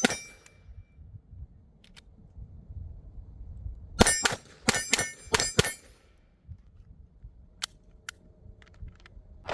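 9mm Glock 45 pistol fired on a range: one shot near the start, then a quick string of four shots about half a second apart, each followed by a brief metallic ring that is typical of steel targets being hit.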